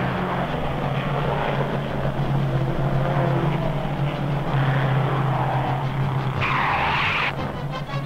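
Vintage open-wheel racing car engines running at speed: a steady drone under a noisy rush, with a louder rushing swell near the end. Music comes in just at the end.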